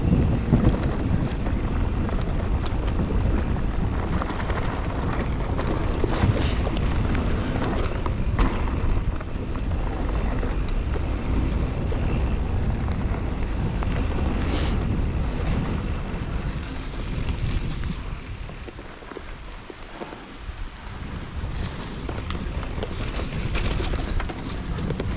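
Mountain bike ride noise: wind rushing over the GoPro microphone, tyres rumbling on the trail and scattered clicks and rattles from the bike, easing off for a few seconds about three-quarters of the way through.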